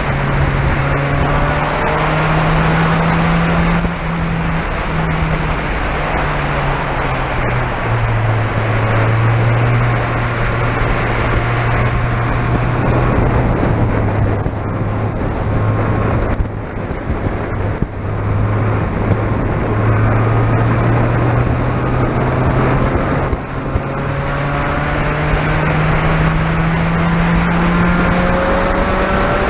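Spec Racer Ford Gen3's 1.6-litre Ford four-cylinder engine heard from the open cockpit under racing load, holding a steady pitch through the middle with a few brief dips, then revving up steadily near the end. A dense hiss of wind and spray off the wet track runs underneath.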